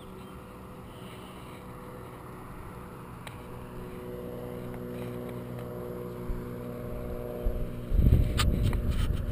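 Steady hum of distant vehicle engines, several even tones that slowly grow louder. About eight seconds in, a much louder low rumble with a few sharp clicks takes over.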